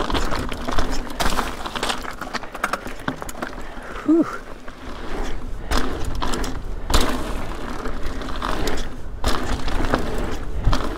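Ibis Ripmo mountain bike rattling along a rocky trail: a buzzing, ratchet-like mechanical clatter from the bike, broken by many sharp clicks and knocks as the wheels hit stones.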